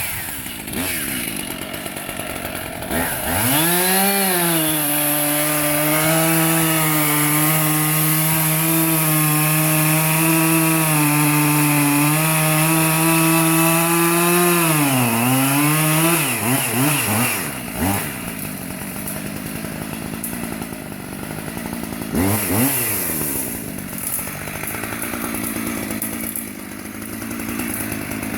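Chainsaw revving up and running at full throttle for about ten seconds, its pitch dipping near the end, then dropping back to a lower, uneven speed with a brief rev-and-fall partway through, as it works into the trunk of a large albizia tree.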